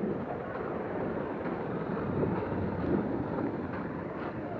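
A bus driving through slush on a hail-covered road: steady noise of its tyres in the slush and its engine.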